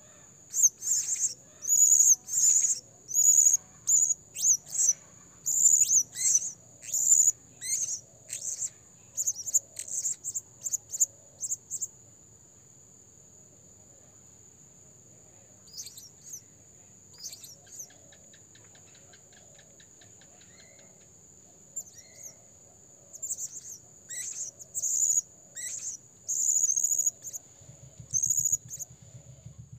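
Blue-crowned hanging parrot (serindit) giving a long run of short, shrill, high-pitched calls, about two a second. The calls break off for several seconds midway, then a few come singly, and the run resumes. This is a decoy bird calling in full voice, the kind used to lure wild serindit.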